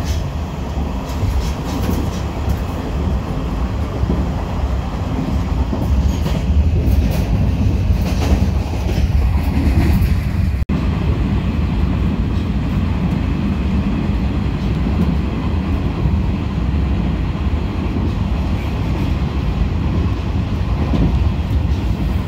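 Passenger train running on the rails: a steady low rumble with scattered clicks over the first half, broken by a brief dropout about ten seconds in.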